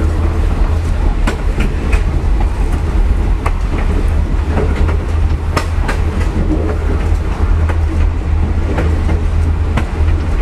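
A railroad car rolling along jointed track: a steady low rumble from the wheels on the rails, with irregular sharp clicks and knocks as the wheels pass rail joints.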